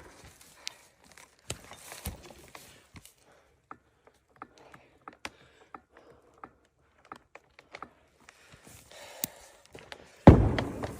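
Scattered light knocks and taps, then a sudden loud thump near the end.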